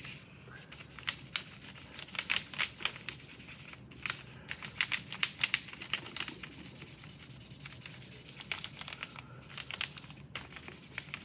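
Chalk pastel being smudged into drawing paper with quick back-and-forth rubbing strokes, coming in runs with short pauses between them.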